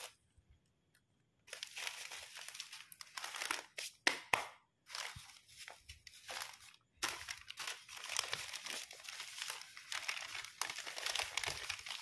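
Plastic bouquet wrapping sheet and spice sachets crinkling as they are handled. The crinkling comes in short bursts after a second or so of quiet, and runs on more steadily from about seven seconds in.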